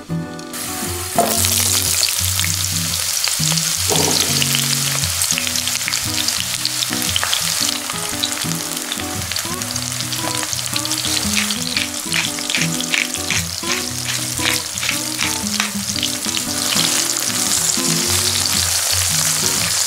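Garlic and young squash (Korean zucchini) slices frying in olive oil in a pan: a loud, steady sizzle that starts about a second in, with a run of sharper crackles around the middle as the slices are turned.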